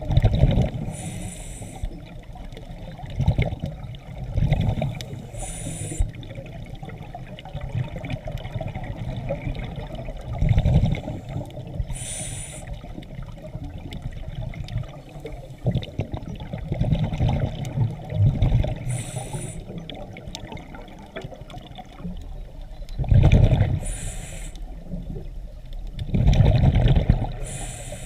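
Underwater scuba breathing through a regulator. Exhaled bubbles rumble and gurgle in loud bursts every few seconds, and a short hiss of inhalation through the demand valve comes between them, about six times.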